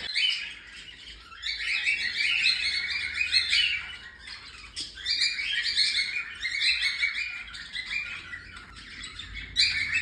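Cockatiels chirping in quick repeated bouts of high calls, one bout starting about a second and a half in and another about five seconds in.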